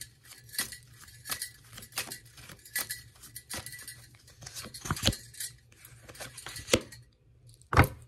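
Tarot cards being shuffled in the hands while a stack of metal bangles on the wrist clinks: an irregular run of light clicks and clinks, with a sharper knock about five seconds in and another near the end.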